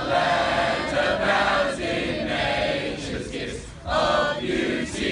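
A large group of teenagers singing an anthem together in unison, with a short break between lines about three and a half seconds in.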